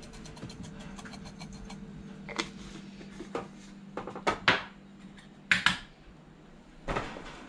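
Rapid light ticking of dried herbs shaken from a shaker over a stainless steel bowl, followed by scattered sharp knocks and clatters of jars and utensils handled on a kitchen counter, several in quick succession. A low steady hum sits underneath.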